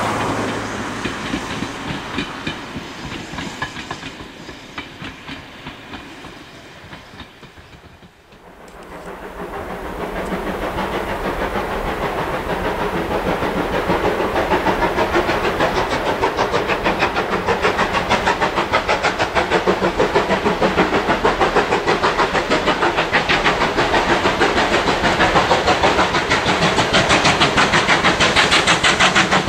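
Ivatt Class 2 steam locomotive 46512 working hard. A passing train fades away over the first eight seconds, then the locomotive is heard again with fast, even exhaust beats that grow louder until about fourteen seconds in and then hold steady and loud.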